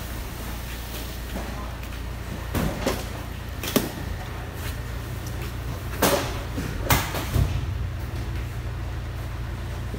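About half a dozen sharp bangs and knocks as cartons are handled inside a steel shipping container, the loudest about six and seven seconds in, over a steady low hum.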